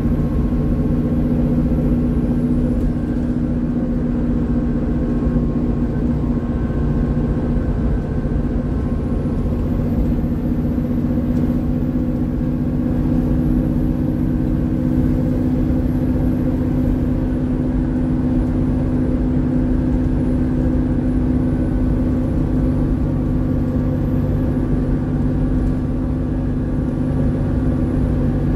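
ADL Enviro 400 double-decker bus heard from on board while under way, its engine running at a fairly steady pitch under a constant rumble of road noise.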